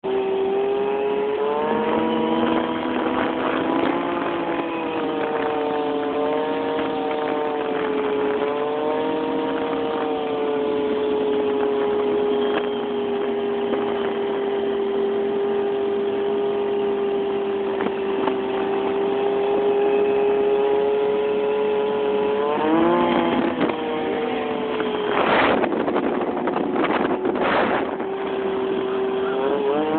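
A vehicle engine running at a steady, fairly high speed with a high droning note that wavers a few times. Its pitch rises sharply a little over 22 seconds in. Several short bursts of noise come near the end.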